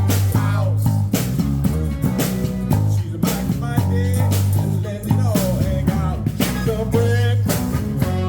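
A band playing a funk-rock song: a steady bass line under regular drum hits, with electric guitar lines over the top.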